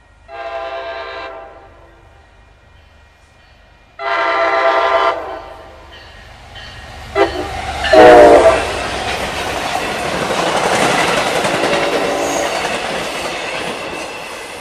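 Diesel locomotive horn on an MPI HSP46 sounding the grade-crossing signal: two long blasts, a short one, then a final long blast, the loudest, as the locomotive reaches the crossing. The heavy rumble and wheel noise of the locomotive and its coaches passing close follow, slowly easing off near the end.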